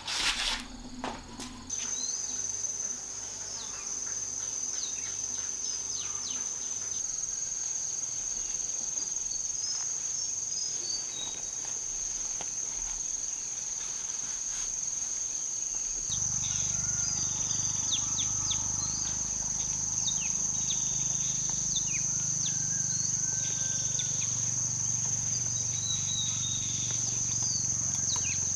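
Steady high-pitched drone of insects, cricket-like, with many short bird chirps scattered through it. A few knocks sound in the first second or so, and about halfway through a low rumble joins the background.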